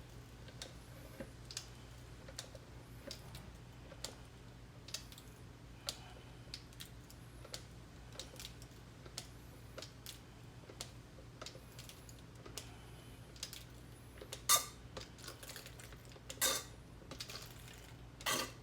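Hand-operated gear oil pump clicking with each stroke in a steady rhythm, roughly once or twice a second, as gear oil is pumped into a car's rear differential fill hole. A few louder clatters come near the end, over a steady low hum.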